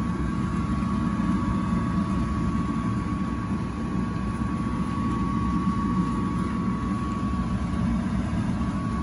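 A steady low mechanical hum with a thin constant whine above it; the whine drops out for a moment near the end.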